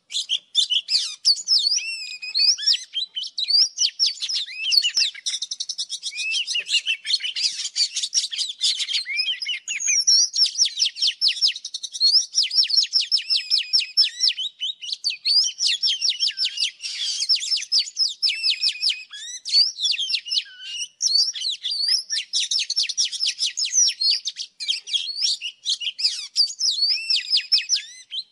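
Oriental magpie-robin singing: a continuous run of varied high whistled phrases and rapid trills, broken only by brief pauses.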